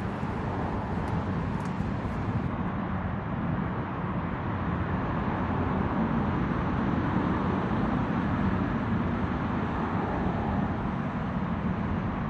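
Steady outdoor background noise, a low even rumble and hiss with no clear single source, and a few faint short high ticks in the first couple of seconds.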